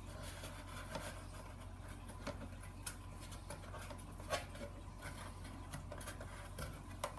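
Faint rubbing and light taps of stiff black board panels being slid and pressed into place by hand as the side walls of a model stage set are test-fitted, over a steady low hum.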